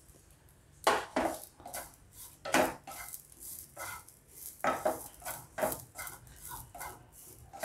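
Wooden spatula scraping and knocking against a nonstick frying pan in irregular strokes, stirring grated coconut that is being dry-roasted with no oil, so there is no sizzle.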